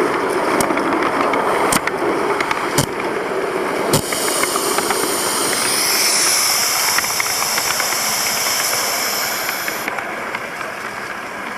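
Miniature coal-fired live-steam locomotive running along the track, with sharp clicks about once a second. About four seconds in, a high steam hiss starts, loudest from about six to ten seconds, then cuts off.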